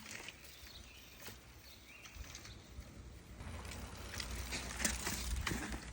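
BMX bike being ridden on a short test ride: a low rolling rumble of the tyres and drivetrain builds from about two seconds in and grows louder, with scattered light clicks.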